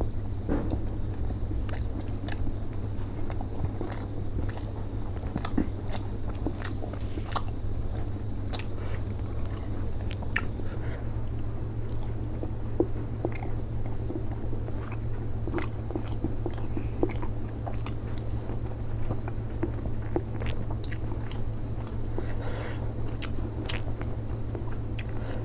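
Close-miked biting and chewing of steamed chicken momos (dumplings): soft wet mouth sounds and many small irregular clicks and smacks, over a steady low hum.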